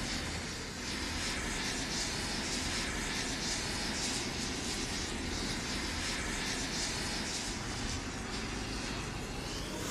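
Rows of wooden matchsticks burning in a chain, a steady fizzing hiss with faint flickering crackle as each match catches.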